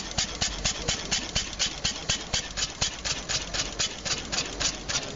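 A small engine running at a slow idle, with an even puttering beat of about five strokes a second.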